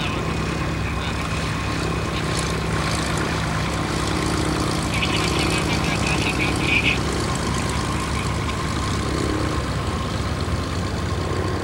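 B-17 Flying Fortress's four Wright R-1820 Cyclone radial engines running at low power with a steady drone as the bomber rolls out along the runway after landing.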